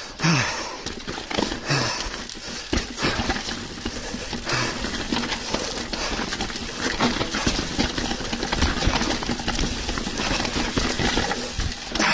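Mountain bike riding fast down a rough trail: tyres rolling over stony ground, with the bike's chain and frame clattering in quick irregular knocks, over a low rumble of wind on the chest-mounted camera's microphone.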